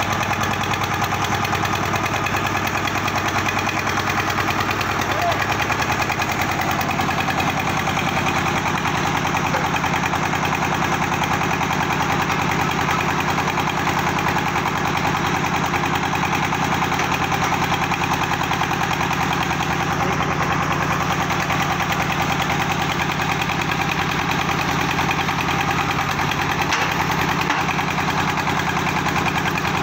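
Single-cylinder diesel engine running steadily, belt-driving the mud pump and machinery of a wash-boring well-drilling rig.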